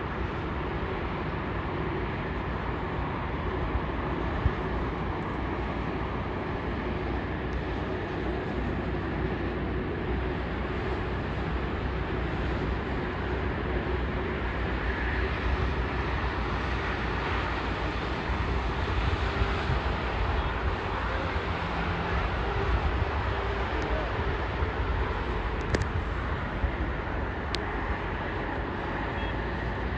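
Airbus A380 jet engines at taxi power: a steady, even rush of jet noise with a faint low hum.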